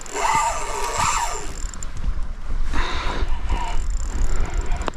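Wind buffeting the microphone with a low rumble that grows stronger partway through, over the whirring of a spinning reel cranked in spells as a small pike is reeled in. The reel's drag is not clicking, so no line is being pulled off. A single sharp click sounds near the end.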